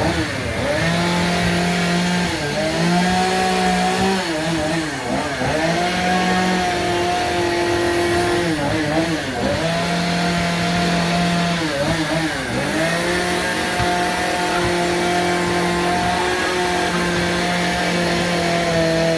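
Gasoline chainsaw running at high revs while carving wood, dropping in pitch and revving back up several times as the throttle is eased and opened again.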